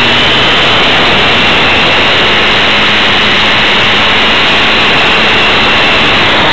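Radio-controlled model airplane's motor and propeller in flight, heard loud and close from a camera mounted on the plane: a steady high whine over a dense rush of propeller and wind noise.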